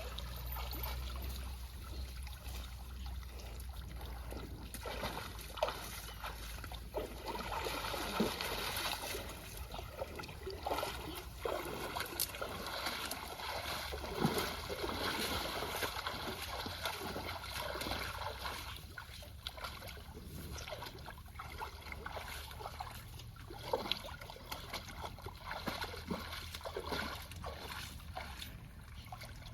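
Water splashing and sloshing irregularly.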